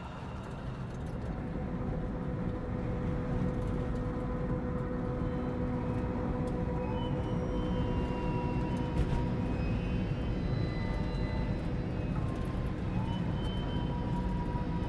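Car cabin noise while driving: a steady low road and engine rumble that swells in at the start, with a few held tones above it.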